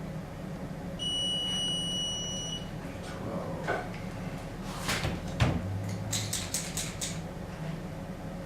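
A single steady electronic beep, high-pitched and lasting under two seconds, then scattered clicks and knocks of tools, with one louder thump in the middle and a quick run of clicks after it.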